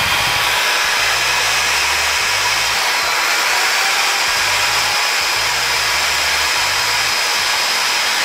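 Corded electric drill running steadily at speed, powered by a repaired 800 W inverter that keeps carrying the load without tripping into protection.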